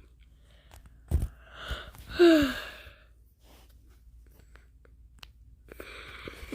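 A person sighing: a breath, then a voiced exhale that falls in pitch about two seconds in, preceded by a soft knock and followed near the end by another breath.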